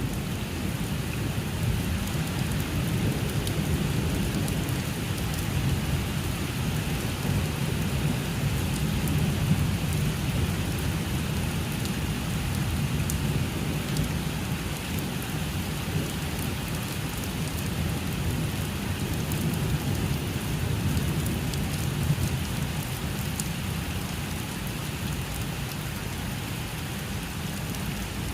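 Thunderstorm: heavy rain falling steadily with a continuous low rumble of thunder and a few sharp drop ticks, with no single loud clap.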